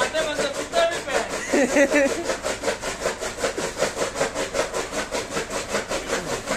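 Electric chaff cutter (fodder-chopping machine) running, its flywheel blades chopping green fodder stalks in a fast, even rhythm of about six cuts a second.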